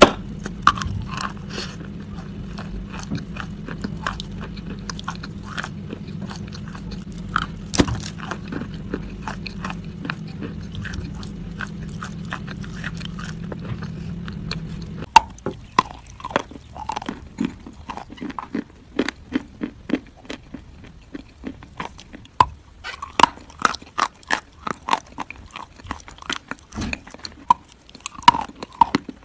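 A person biting and chewing crunchy food close to the microphone: a dense run of crisp, irregular crunches. A low steady hum underneath stops suddenly about halfway through.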